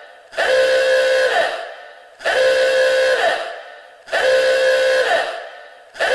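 Explosion-warning alarm horn sound effect blaring in repeated blasts, about one every two seconds. Each blast is a steady horn tone that lifts briefly in pitch at its end before dying away.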